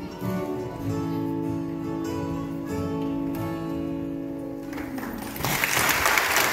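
Mandolin, fiddle and acoustic guitar ending a tune on a long held final chord, which dies away about five seconds in. Audience applause then breaks out and is louder than the music.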